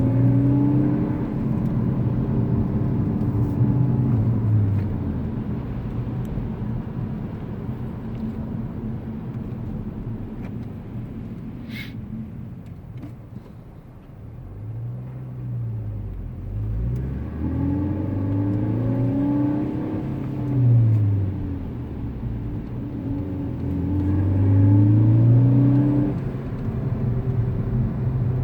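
Car engine with a pops-and-crackles tune, revved up and let fall back several times, the engine note rising and falling. On the overrun it gives none of the crackles the tune should make, apart from a single short click about twelve seconds in.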